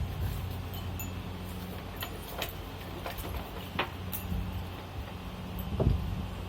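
Scattered light metallic clinks and taps from tools and parts being worked on a car wheel during a tire change, about half a dozen, over a steady low hum.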